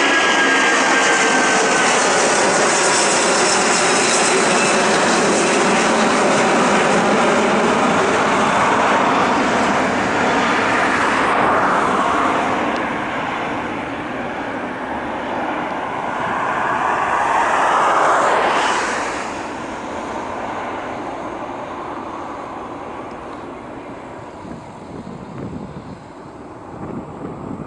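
Boeing 747-400's four jet engines at high power as the airliner goes past, a loud rushing roar with a whine that falls in pitch. The sound swells twice, then fades steadily as the jet moves away.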